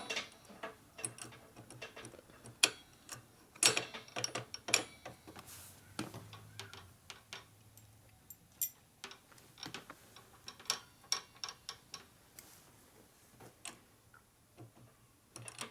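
Irregular light clicks and taps of hand tools and small metal parts being handled, with a brief low hum about six seconds in.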